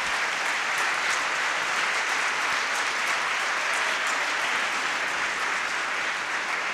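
Audience applauding steadily after a lecture, easing off slightly near the end.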